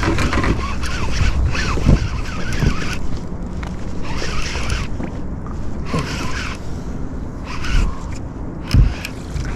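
Wind rumbling on the microphone, with handling noise from the anglers and their gear on the boat: scrapes, rustles and low thumps. The clearest thumps come about two seconds in and near the end.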